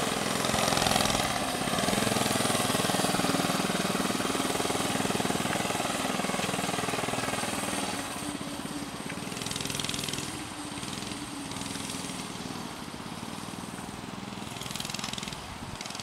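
Small gasoline engine of a mini bike running under way, its pitch rising and falling with the throttle. It grows fainter from about halfway through as the bike moves off.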